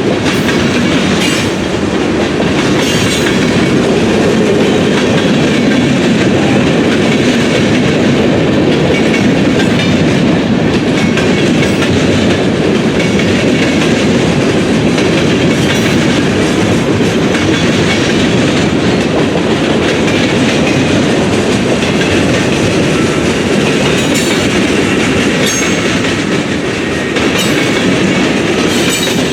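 Freight train cars rolling past, steady wheel and rail noise with wheels clicking over the rail joints.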